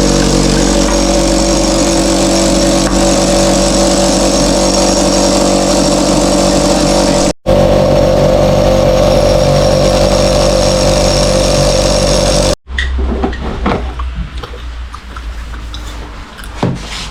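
Air compressor running with a steady loud hum, making a weird sound while not pumping any pressure: it has stopped compressing. It drops out briefly about seven seconds in and cuts off abruptly about twelve seconds in, after which only scattered quieter knocks and clicks remain.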